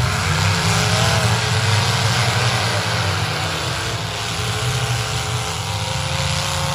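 Several full-size demolition derby cars' engines running and revving in a dirt arena, their pitch rising and falling, over a steady wash of noise.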